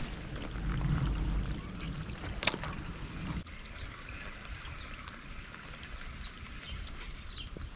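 Steady rushing of flowing river water, with a low rumble that stops abruptly about three and a half seconds in and a sharp click about two and a half seconds in.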